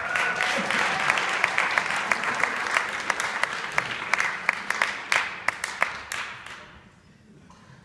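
Audience applause, with a few close, sharp claps standing out from the crowd; it dies away about six to seven seconds in.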